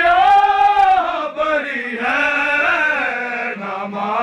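Male voices chanting a noha, a Shia mourning lament, in long held lines that rise and fall in pitch.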